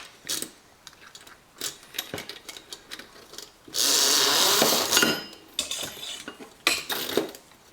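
Metal and plastic faucet parts being handled and set down, with scattered clinks and knocks and a loud hissing scrape lasting about a second, around four seconds in.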